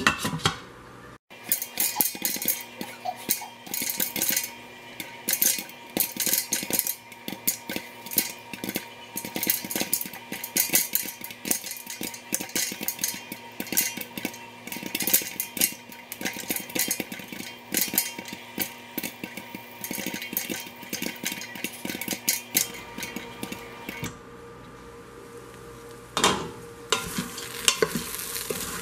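Popcorn kernels popping in hot oil in an Instant Pot's steel inner pot under a glass lid: dense, irregular pops and taps against the lid over a sizzle of oil. Near the end, a wooden spoon stirs and scrapes the popped corn in the steel pot.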